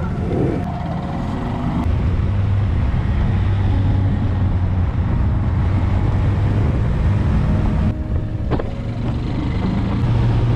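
Honda Monkey 125's small air-cooled single-cylinder four-stroke engine running steadily under way, a low drone heard from on the bike.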